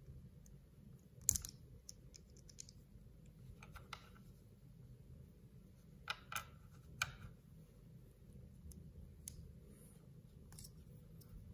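Small plastic parts of a Kinder Natoons toy turtle being pressed and snapped together by hand: scattered sharp clicks, the loudest about a second in and a group of three around six to seven seconds in, over a faint low hum.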